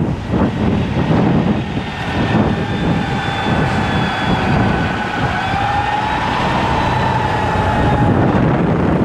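Wind buffeting the microphone during a ride, a steady low rumble. From about two and a half seconds in until near the end, a sustained high-pitched tone with a slowly wavering pitch rises out of the street noise.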